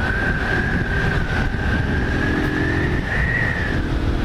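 Honda 160 motorcycle cruising at a steady speed: even engine and wind rush, with a steady high whine that rises a little about three seconds in and then eases back.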